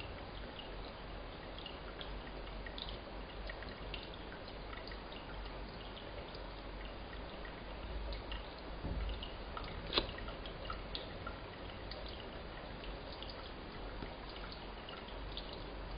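Water dripping and ticking faintly over a steady hiss, with one sharper click about ten seconds in.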